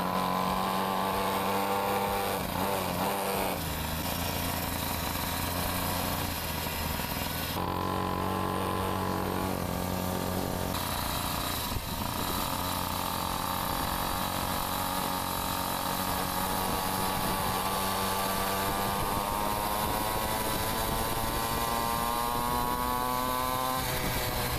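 A pocket bike's small petrol engine running under way. Its pitch shifts with the throttle a few times, then climbs steadily over the last ten seconds as the bike picks up speed.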